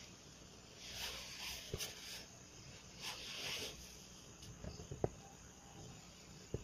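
Python hissing twice while held by the neck, each hiss about a second long, with a few sharp clicks in between.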